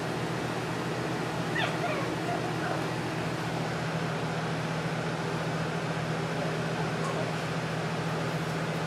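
Steady whir and hum of a box fan, with a few faint, brief puppy yelps about a second and a half to three seconds in.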